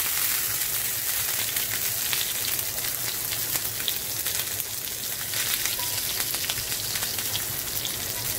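Zucchini slices sizzling in hot olive oil in a cast iron skillet on high heat, a steady hiss dotted with small crackles and pops, as more slices are cut into the pan.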